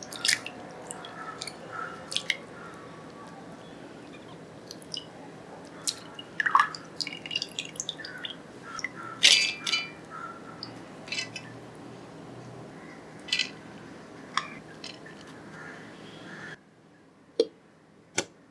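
Hands swishing and scooping soaked red lentils (masoor dal) in water, with drips and many small wet clicks of the grains, then handfuls of wet lentils going into a steel grinder jar. Near the end, two sharp clicks as the grinder jar's lid goes on.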